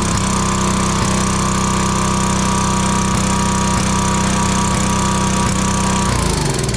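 Small single-cylinder engine of a Craftsman pressure washer running steadily and smoothly, without its air filter, on a freshly adjusted carburettor. Near the end the engine note sags and slows as it winds down.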